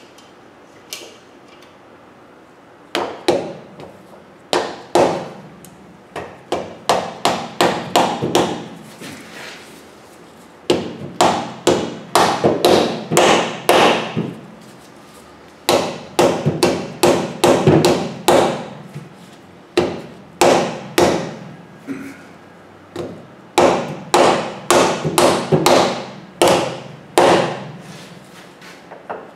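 Red-headed hammer striking a differential carrier to drive it, with its bearing races and shims, into the rear axle housing. The blows come in runs of quick strikes, about three a second, with short pauses between.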